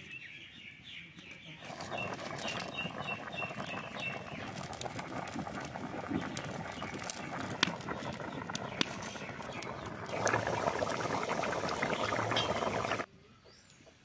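Chicken curry boiling hard in a metal kadai over a wood fire: dense bubbling and popping that starts suddenly about two seconds in, grows louder for its last few seconds and cuts off about a second before the end. Birds chirp before and after it.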